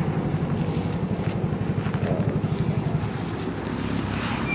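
Motorcycle engine idling with a steady low throb that eases off a little after about three seconds.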